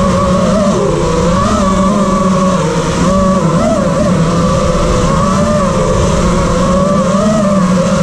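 DJI FPV drone's electric motors and propellers whining in flight, the pitch wavering up and down as the throttle changes, over a steady rush of propeller wash.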